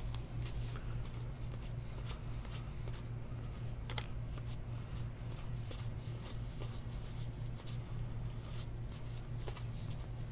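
A stack of baseball trading cards being flipped through by hand: a quick, irregular string of light flicks and slides of card against card, over a steady low hum.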